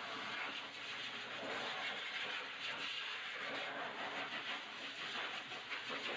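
Hose-type dog blow dryer blowing a steady rush of air onto a wet dog's coat, the hiss wavering a little as the nozzle moves over the fur.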